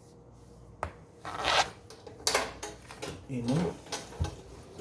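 Hands handling a power cord's wires and the unit's parts while fitting the wires back into a PTAC air conditioner: a sharp click about a second in, then short bursts of rustling and scraping.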